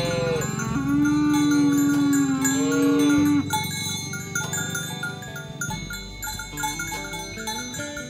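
A cow moos in one long, steady call of about two and a half seconds, just after the end of a shorter, higher call. After that, background music with chiming mallet notes plays.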